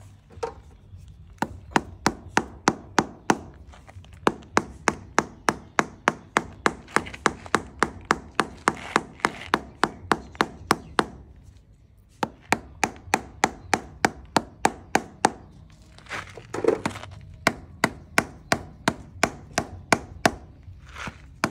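Rapid, even tapping on ceramic wall tile, about four sharp knocks a second in runs of several seconds with short pauses, as the tiles are tapped down to bed them into their adhesive.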